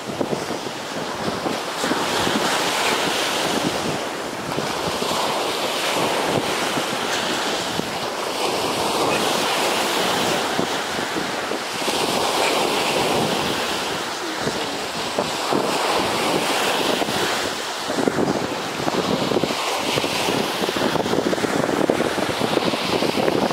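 Surf breaking on a sandy beach, the wash swelling and easing every couple of seconds, with wind gusting on the microphone.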